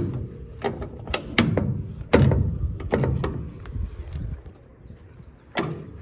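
A run of irregular clunks and knocks, several in the first three seconds, then a quieter stretch and another loud knock near the end.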